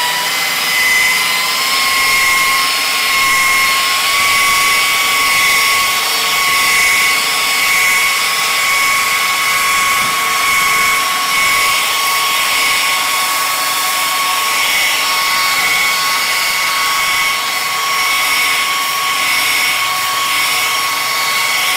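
Hitachi electric rotary polisher running with a denim pad and compound on car paint, a steady high whine. It climbs slightly in pitch in the first few seconds as it is revved up from spreading speed to working speed, then holds steady while cutting the paint.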